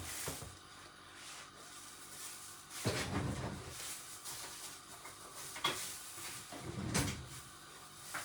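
Cooking pot and its lid being handled: a few separate knocks and clatters, the loudest about three and seven seconds in, over a faint steady hiss.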